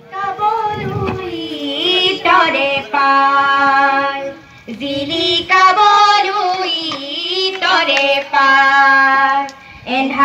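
Group of children and women singing an anthem together at a flag salute, in slow phrases of long-held notes with short breaks between lines.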